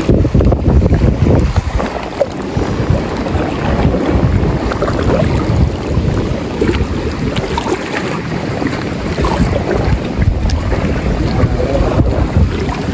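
Wind buffeting the microphone: a loud, gusty, uneven rumble.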